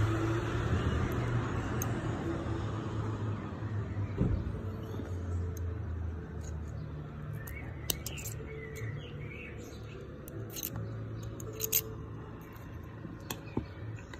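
Small sharp clicks of metal parts as a Voopoo PnP-VM5 vape coil is worked apart with a small screwdriver, scattered through the second half, over a low steady background rumble that fades somewhat, with a few bird chirps in the middle.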